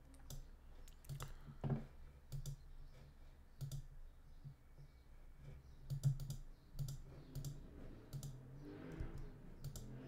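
Scattered, irregular clicks of a computer mouse and keys being pressed while a simulator is worked, over a faint low hum.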